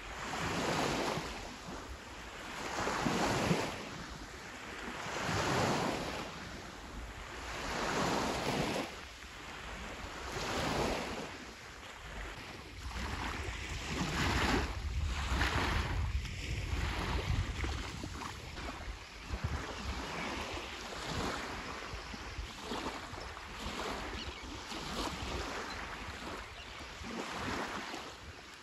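Small sea waves washing onto a shelly beach, one swell of surf about every two and a half seconds, with wind rumbling on the microphone through the middle.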